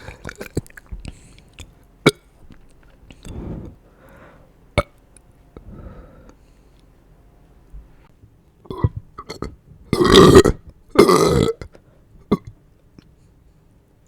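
A person belching: scattered small mouth clicks and a few quiet breathy burps, then two long, loud burps one right after the other about ten seconds in, and a short burp after them.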